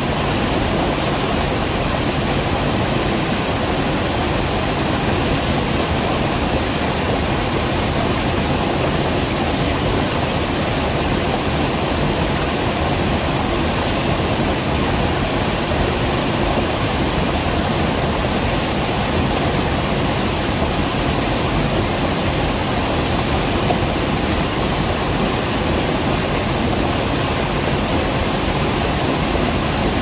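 Stream water pouring steadily over a rock ledge in a small cascade and churning into a pool between boulders, a loud, even rush without a break.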